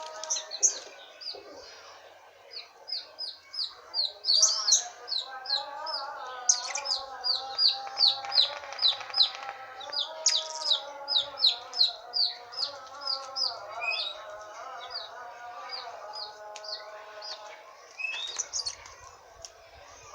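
Blue-crowned hanging parrot (serindit) giving a long series of short, high-pitched chirps, about two to three a second, with pauses, over a lower, steady wavering tone.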